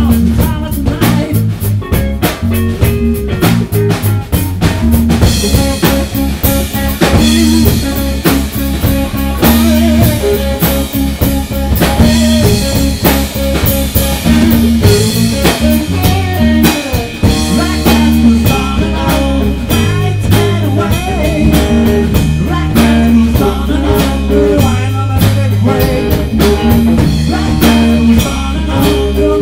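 Band music: a drum kit and electric guitar over a bass line that changes note every second or two.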